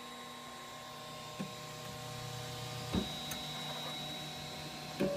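Flashforge Dreamer 3D printer humming steadily at rest, its print just finished. A small click about a second and a half in, and a sharper click about three seconds in.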